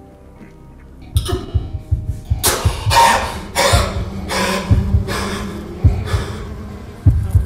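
A man coughing and gasping in a run of harsh breaths, about one every half second to second, starting about a second in. Low thuds and a steady low hum sit beneath.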